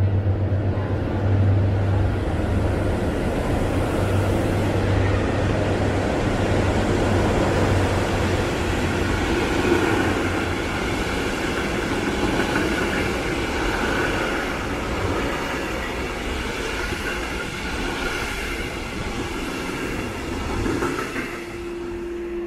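A train running through the station on the nearest track under the trainshed roof: a steady rumble of wheels on rail, with a low hum for the first half and several high whining tones joining about halfway through.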